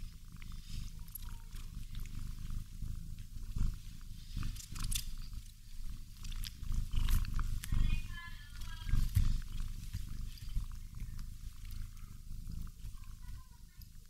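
Domestic cat purring close to the microphone, a low pulsing rumble that carries on steadily, with faint rustling and small clicks as it nuzzles into a plush toy.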